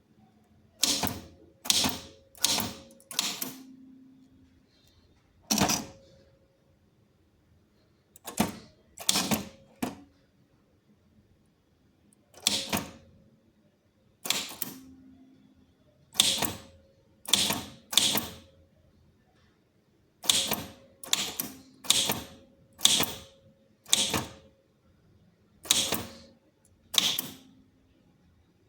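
Old Tamil typewriter being typed on slowly, one key at a time: about twenty sharp clacks at uneven spacing with short pauses, some followed by a brief ring.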